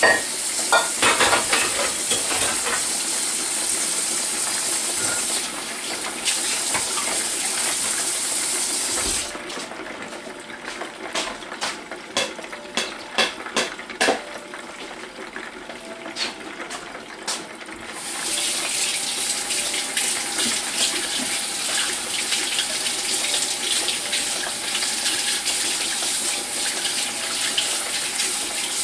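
Pork chop frying in hot oil under the lid of a Presto electric fryer: a steady sizzling hiss with scattered crackles. For several seconds in the middle the hiss drops away and single pops and crackles stand out, then the full sizzle comes back.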